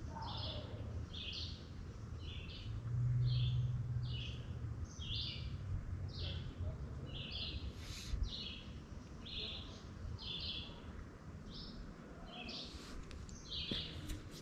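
A bird calling with short chirps, repeated at an even pace of about one and a half a second, over a low rumble that swells briefly about three seconds in.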